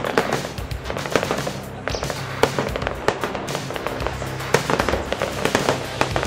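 Aerial fireworks shells bursting one after another in irregular sharp bangs, mixed with a steady background music track.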